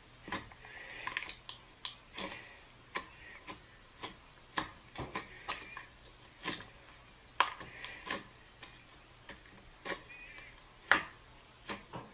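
Slime being pressed and stretched by hand, giving irregular sticky clicks and pops, about two a second.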